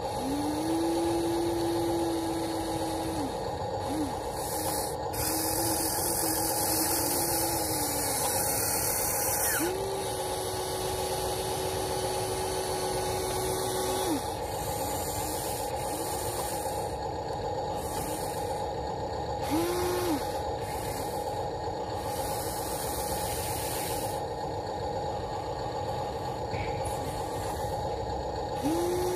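Electric motors of a Huina RC excavator whining as it moves its boom, arm and bucket, in several separate runs of a few seconds, each rising in pitch as it starts and dropping as it stops, over a steady high hum. Two stretches of hiss come in alongside, the first a few seconds in and the second towards the end.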